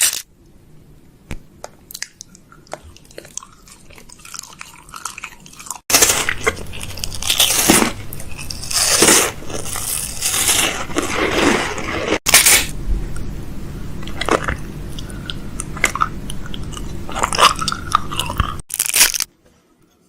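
Close-miked ASMR mouth sounds, wet and crunchy like chewing. Soft scattered clicks for the first six seconds give way to much louder, dense crackling, broken by abrupt edits about 6, 12 and 19 seconds in.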